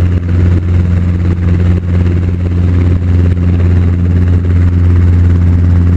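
Training helicopter's engine and rotor drone heard from inside the cabin: a loud, steady low hum with a few evenly spaced overtones.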